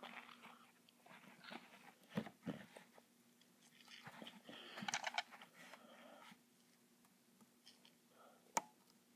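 Faint crunching and clicking as small plastic toy figures are handled, with a quick run of ticks about halfway through and one sharp click near the end.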